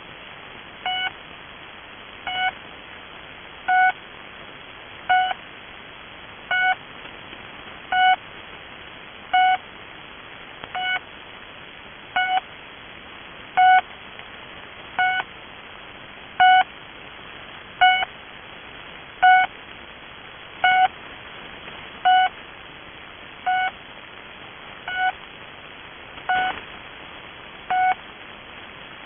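The Pip, a Russian military shortwave channel marker on 3756 kHz, received in double sideband: a short beep repeating about every second and a half over steady radio hiss.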